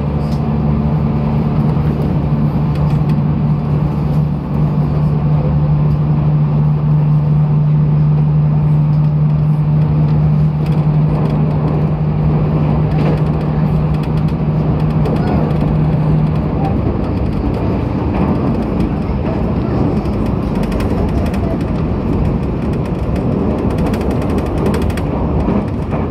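Running sound inside a JR Kyushu 811-series electric train's motor car travelling at speed: a steady rumble of wheels on rail. A steady low hum from the traction motors sits under it and stops about two-thirds of the way through.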